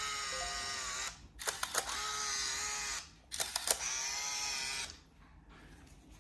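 Olympus AM-100 compact film camera's built-in motor winding the film on in three runs, each about a second and a half long and starting with a few clicks, with a steady whine: the camera advancing freshly loaded film to the first frame.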